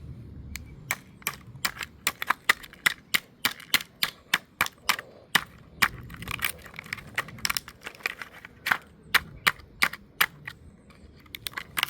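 Rapid, repeated sharp blows on a camcorder's plastic body as it is being smashed, about three or four strikes a second, with a short lull near the end.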